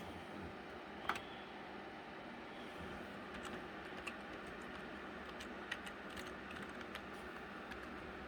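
Computer keyboard being typed on in scattered, irregular keystrokes, over the steady whir of the running mining rig's fans.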